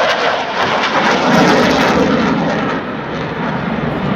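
An F-16 fighter jet flying past overhead: loud, steady rushing jet-engine noise that eases off slightly near the end.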